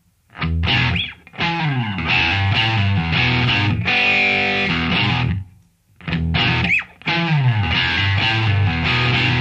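Noise rock from a studio recording: distorted electric guitar over bass playing a stop-start riff. Loud chord bursts are cut off by short, sudden silences, and the chords slide down in pitch twice.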